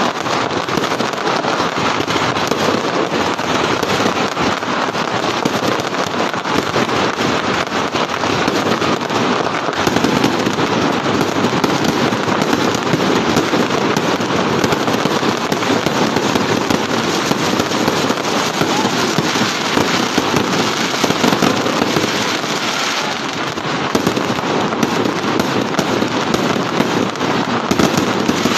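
Fireworks display going off overhead: a dense, continuous crackle of many quick pops and bursts that keeps up without a break.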